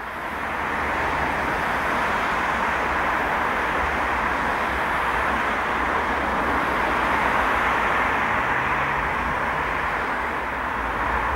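Airbus A319's two IAE V2500 turbofan engines on final approach, gear down, heard as steady jet noise. It fades in over the first second, then holds even.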